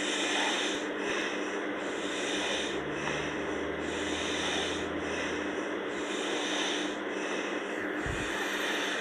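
Sleeping girl snoring, noisy breaths swelling and fading about once a second, with a lower rumbling snore a few seconds in. A steady hum runs underneath.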